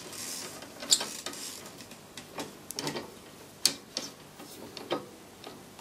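Light, irregular metallic clicks and ticks as a left-hand-threaded rod end is turned by hand onto a steel gear-linkage rod, the parts knocking against each other.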